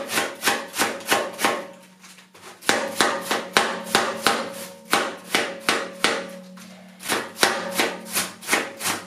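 Kitchen knife shredding a head of white cabbage on a plastic cutting board: quick, even slicing strokes, about three a second, each ending in a knock of the blade on the board, with two short pauses.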